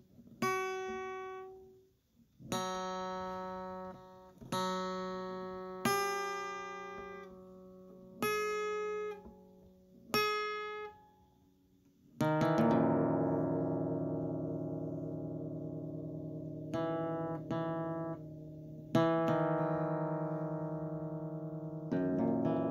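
Background acoustic guitar music: single plucked notes that ring and fade, about one every two seconds, then fuller strummed chords that sustain from about halfway.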